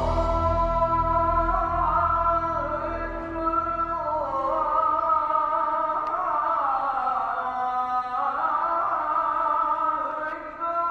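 A man's voice chanting the ezan, the Islamic call to prayer, in long held notes that slide and wind up and down.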